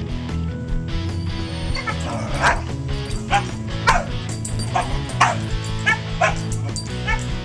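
Pit bull puppy giving a string of short, high yips and barks, about eight of them from around two seconds in, over background music.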